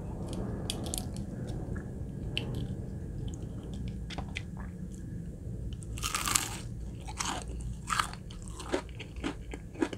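Close-up chewing and crunching of crispy battered Popeyes fried chicken nuggets, a crackle of breading with each bite and chew, with one louder crunch about six seconds in.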